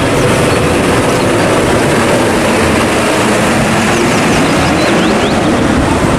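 Loud road traffic: a Hino diesel fuel tanker truck driving past close by on a highway, its engine rumble and tyre noise steady, with other vehicles around it.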